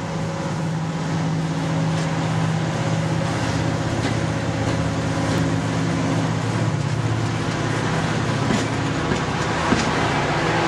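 Diesel locomotive's engine running with a steady low drone as it draws slowly up to the platform and stands.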